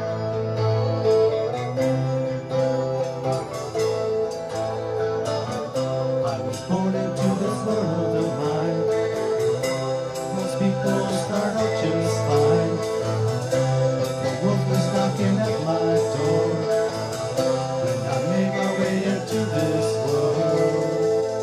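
A song with guitar accompaniment and a singing voice.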